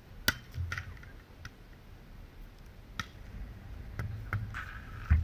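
A few separate sharp knocks and taps over a faint low rumble. The loudest comes just after the start, and a heavier thump comes near the end.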